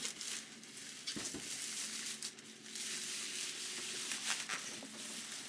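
Clear plastic protective bag rustling and crinkling as it is pulled down off a large pen display, coming and going unevenly.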